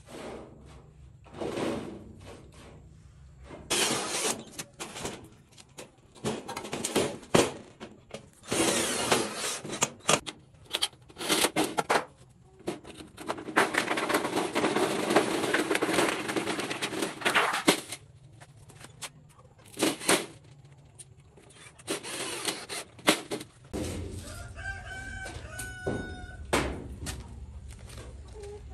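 A large sheet panel on a metal frame being handled: knocks, scrapes and rustling as it flexes and shifts, with a longer stretch of rubbing or scraping in the middle. Chickens calling near the end.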